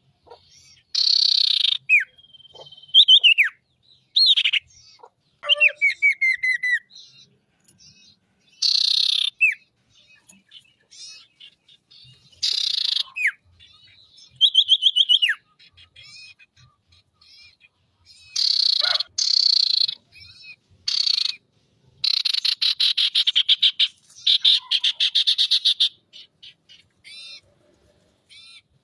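Sirtu (common iora) singing a loud, varied song in bursts. Harsh rasping calls alternate with whistled notes that slide downward and with fast rattling trills, with short pauses between phrases. This is the kind of song played as a lure to call in other sirtu.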